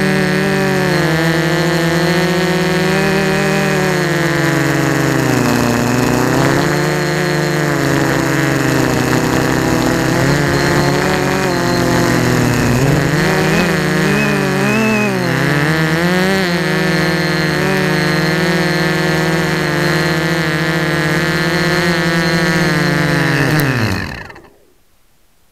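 Electric motors and propellers of a homemade wooden-frame multirotor, heard through its own onboard camera: a steady whine whose pitch rises and falls with the throttle. Near the end it winds down and stops as the craft lands.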